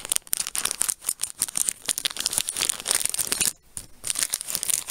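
Plastic packaging crinkling and rustling as it is handled, a dense run of irregular crackles with a brief pause about three and a half seconds in.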